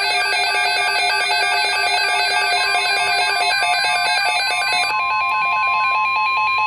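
Weather radio alert tones: a warbling electronic alarm that steps rapidly back and forth between pitches. About five seconds in, the steady single-pitch NOAA Weather Radio warning tone joins it, the signal that an alert message is about to be broadcast.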